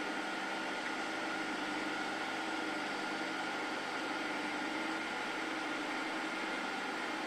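Glass edge-processing machine running steadily: an even motor hum with a constant whine and a hiss over it.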